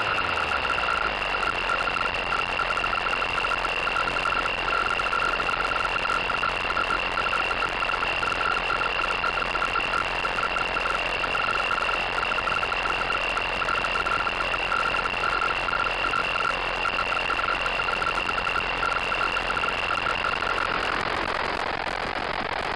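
Synthesized aircraft engine noise from the VCV Rack 2 modular synthesizer: a steady hiss with a high, steady whine and a fluttering lower tone over a low hum. The whine and the fluttering tone stop about 21 seconds in, leaving the hiss and hum.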